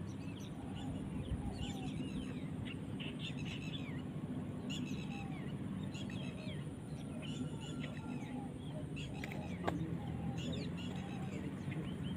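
Small birds chirping and twittering in quick clusters over a steady low hum, with one sharp tap about ten seconds in.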